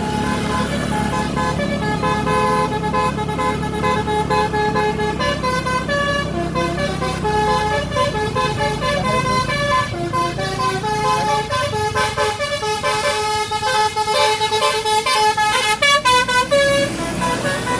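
Bus 'telolet' basuri horn, a multi-trumpet musical air horn, playing a stepping multi-note tune, ending in a run of quick short toots about three seconds before the end. The bus engine's low rumble runs under the first half.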